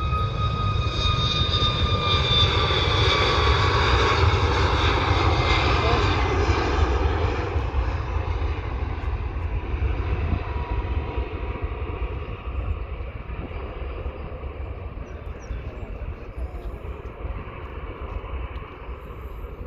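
Jet airliner's engines at takeoff thrust on the takeoff roll, passing by and heading off down the runway. A deep rumble runs under a whine that slowly falls in pitch as the jet goes past; the sound is loudest in the first several seconds, then fades as it moves away.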